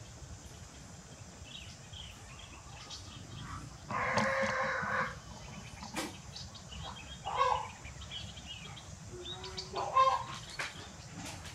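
A rooster crowing once, a loud call of about a second starting about four seconds in. Shorter chicken calls follow twice, later on.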